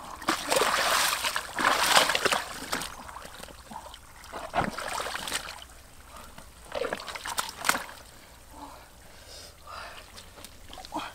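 Water splashing and sloshing: a run of heavy splashes in the first three seconds, then scattered smaller splashes and drips.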